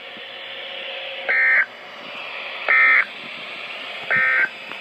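Emergency Alert System end-of-message (EOM) signal: three short, identical bursts of warbling digital data tones, about a second and a half apart, over a steady radio hiss. The bursts mark the end of the alert message.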